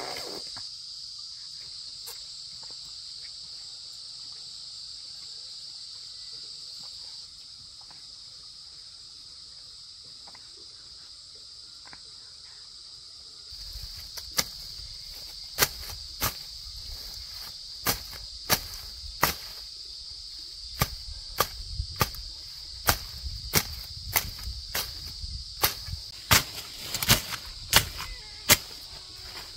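Steady high-pitched insect chorus. About halfway through, a low rumble comes in and a run of irregular sharp knocks starts, growing more frequent toward the end.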